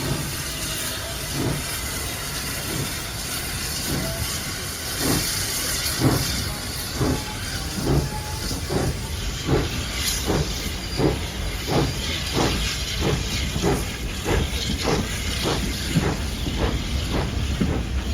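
Steam locomotive pulling away, its exhaust chuffs quickening from about one a second to two or more a second over a steady hiss of steam.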